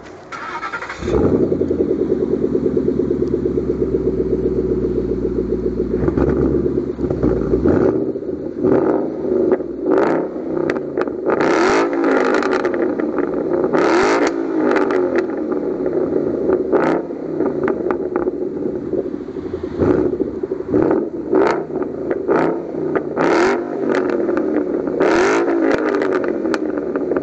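An engine starts about a second in and runs steadily, then from about eight seconds in it is revved up and down again and again.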